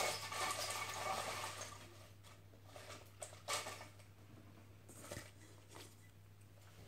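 Folded paper lots rustling against a stainless-steel bowl as they are stirred and one is drawn out by hand. The rustling is loudest in the first two seconds, then gives way to a few faint taps.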